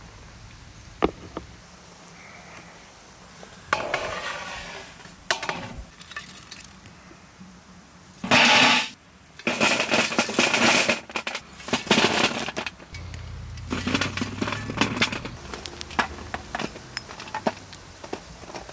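Lumps of hot charcoal scraped up with a metal shovel and tipped onto a steel pan lid, clattering and clinking on the metal, densest around the middle, then scattered clinks as the coals are spread across the lid.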